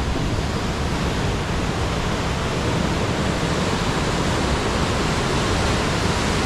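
Surf on a rocky North Atlantic shore: a steady, even rushing noise with no single wave standing out.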